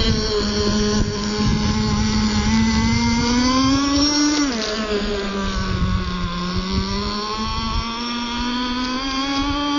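Engine of a CEN Racing Gray Thunder GP radio-controlled racing boat running under way, its high buzzing note swelling and sagging with the throttle. The pitch dips sharply about four and a half seconds in and climbs again near the end.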